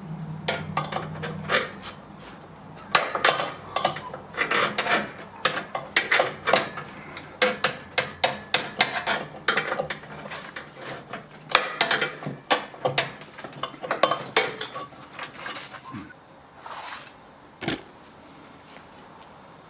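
Steel spanner clinking and scraping on the mower's blade bolts as they are undone, with bursts of sharp irregular metal clicks.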